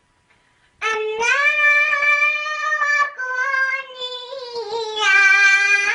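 A child's voice reciting the Quran in a melodic chant, beginning about a second in after a short silence, with long held notes that slide slowly between pitches.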